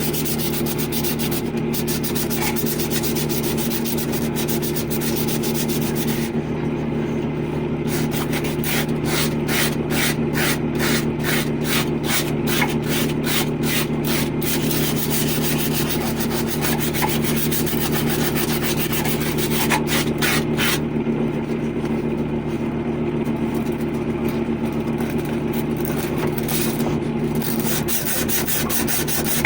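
Sandpaper rubbed back and forth on a copper pipe in quick, regular scraping strokes, cleaning the pipe surface before the joint is repaired.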